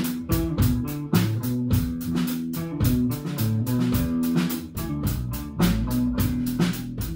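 Live psychedelic rock from a guitar–bass–drums trio: a semi-hollow electric guitar and an electric bass playing over a drum kit, with a steady, busy beat of cymbal and drum strokes.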